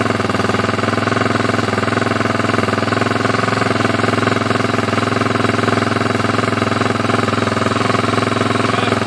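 Honda XR400's single-cylinder four-stroke engine idling steadily after a top-end rebuild.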